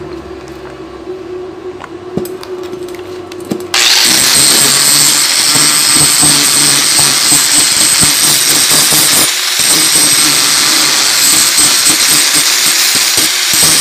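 A quieter steady hum, then about four seconds in an angle grinder cuts in loudly, grinding down a weld bead on thin steel square tubing, steady apart from one brief dip near the middle.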